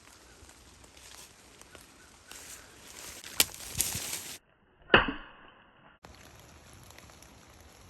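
A swishing noise builds with two sharp cracks in it, then cuts to dead silence; one loud sharp strike with a short ringing tail follows, and the faint outdoor background comes back about a second later.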